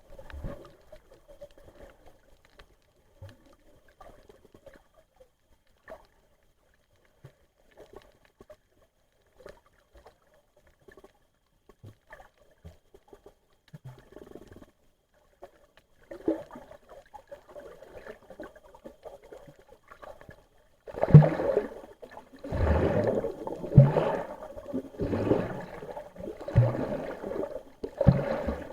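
Muffled underwater water noise picked up by a camera below the surface. Faint scattered clicks and crackles give way, about three-quarters of the way in, to loud gurgling water surges that come roughly once every second and a half.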